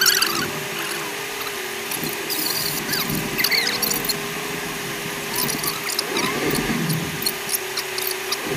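Fast-forwarded cabin audio of an off-road SUV driving over desert sand, sped up about eightfold into a steady hum with many short high squeaks, chirps and clicks.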